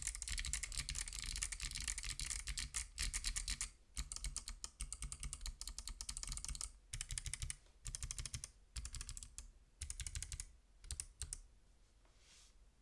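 Typing on a Lily58 Pro split keyboard with clicky BOX Crystal Jade switches and MT3 keycaps: fast, dense key clicks for the first few seconds, then bursts of typing broken by short pauses, stopping about a second before the end.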